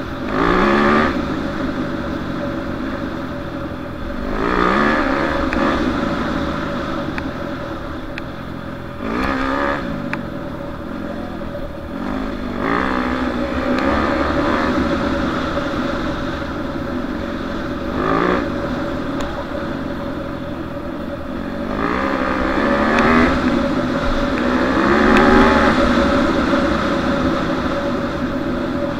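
Yamaha YZ250F dirt bike's single-cylinder four-stroke engine under hard riding, its note rising and dropping in about seven surges as the throttle is opened and eased.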